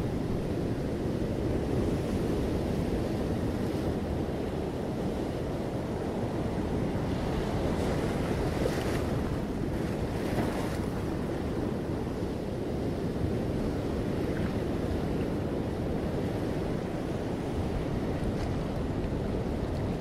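Sea waves washing steadily onto a rocky shore, with wind rumbling on the microphone. The surf swells to a louder hiss around the middle.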